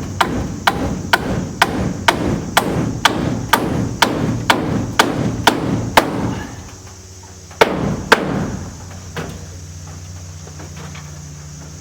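Hammer driving nails into wooden framing: a steady run of about a dozen blows, roughly two a second, then a short pause and two harder blows close together, followed by one lighter one.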